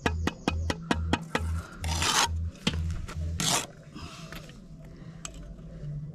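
A brick trowel tapping on a spirit level laid across the top of freshly laid bricks, a quick run of light taps about four a second to bed the bricks down level. Then come two short, loud scrapes about two and three and a half seconds in.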